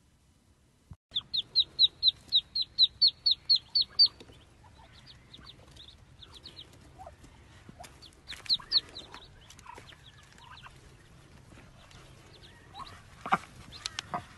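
Ducklings peeping: a fast, even run of high peeps, about four a second, starting about a second in, then scattered peeps and another short burst later. A couple of sharp knocks come near the end.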